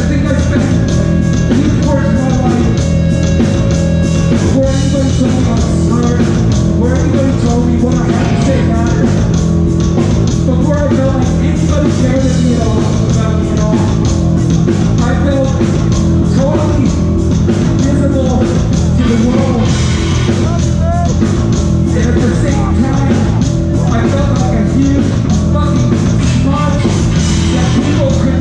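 A hardcore punk band playing live at full volume: distorted guitars, bass and fast drums under shouted singing.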